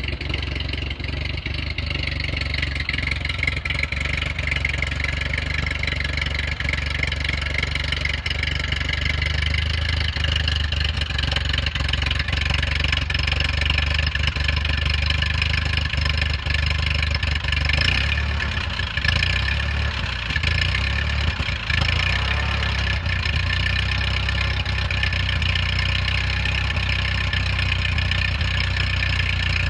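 Ford 8N tractor's four-cylinder flathead engine running steadily, turning its flat belt pulley to drive a belt to a second tractor. It gets a little louder about ten seconds in, with a few brief dips in the sound around the middle.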